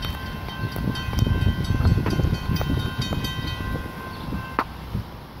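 Locomotive air horn sounding one long blast, a chord of several steady tones that cuts off about four and a half seconds in, over a low rumbling noise.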